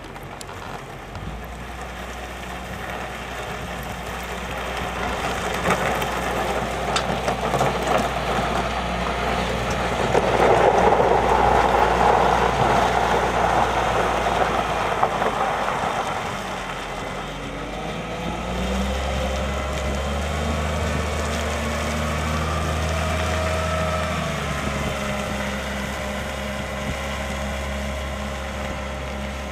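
Volvo L70F wheel loader's diesel engine running as the machine drives across the dock with its bucket lowered, scraping dredged material off the pavement. Loudest about ten to sixteen seconds in as it passes closest, and the engine revs up about nineteen seconds in.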